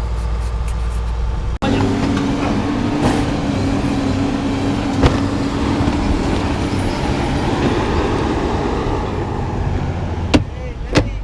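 A vehicle running and moving, with a steady engine hum under road noise and a few sharp knocks or clicks. The sound cuts out briefly about one and a half seconds in, where the recording jumps.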